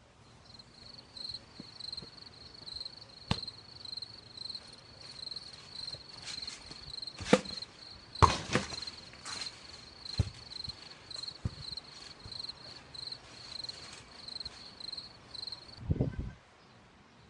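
Insects chirping in a steady, high, pulsing tone, with scattered knocks and thumps from someone bouncing on a net-enclosed trampoline. The loudest knocks come about 7 to 9 seconds in, and a short low rumble comes near the end.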